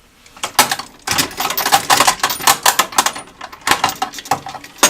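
Metal sockets and tools clinking and clattering against each other in a steel toolbox drawer as they are handled: a dense run of small metallic clicks and knocks, with one sharper clack near the end.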